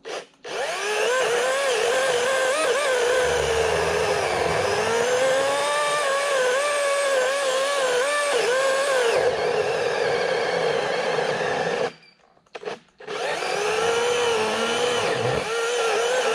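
Greenworks Commercial GS180 18-inch cordless electric chainsaw cutting into the base of a large tree trunk, its motor whine wavering in pitch. It stops about 12 seconds in, gives a short blip, and starts cutting again a second later.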